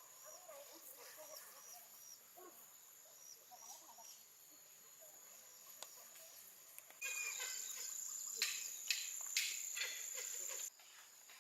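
Insects trilling in a steady high-pitched drone, with small repeated chirps over it. About two-thirds of the way in, a louder, clickier stretch comes in for a few seconds and then cuts off suddenly.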